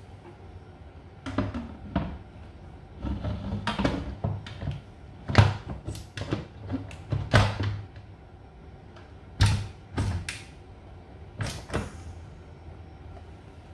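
A Noxxa electric pressure cooker being handled: about a dozen irregular sharp knocks and clicks as its lid is fitted and locked and its front control panel buttons are pressed. The loudest knocks come in the middle.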